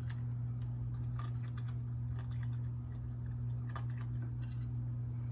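Raccoon chewing dry cat kibble, a few scattered small crunches, over a steady low hum and steady high-pitched cricket chirping.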